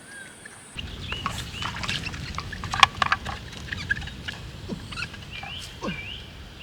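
Small birds chirping over a noisy outdoor background, with scattered clicks and a sharp click about three seconds in.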